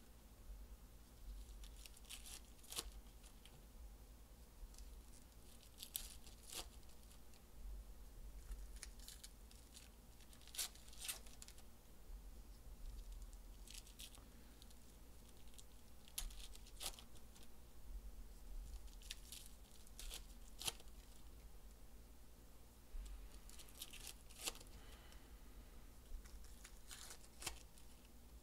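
Foil wrappers of 2021 Panini Legacy football card packs being torn open and crinkled by hand: faint, short crackles scattered every second or two.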